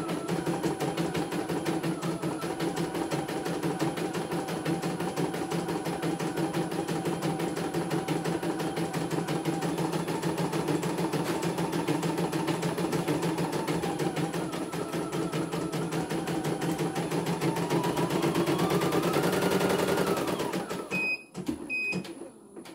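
CNY E900 computerised embroidery machine stitching a design at speed, a dense, rapid, even run of needle strokes. Near the end the pitch rises and falls, the stitching stops, and the machine gives two short beeps, the signal that a colour section is finished and the next thread colour is due.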